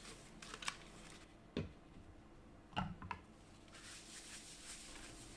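Paper towel rubbing a coffee grinder's hopper dry, a soft scuffing in the second half, with a few light knocks of the hopper being handled.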